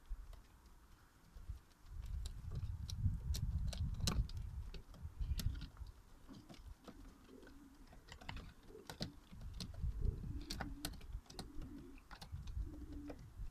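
Male domestic pigeons cooing in short low calls that come more often in the second half, over scattered sharp clicks and taps and a low rumble.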